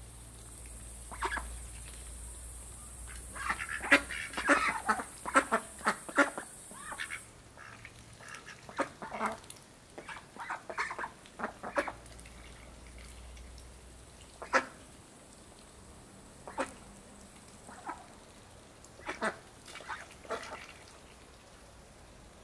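Indian Runner ducks quacking as they feed: a flurry of short quacks between about three and seven seconds in, then single quacks now and then.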